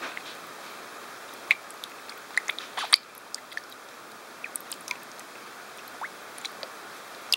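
A pearlscale goldfish being handled in wet hands: scattered sharp clicks, bunched in the first half with a few later, over a steady hiss.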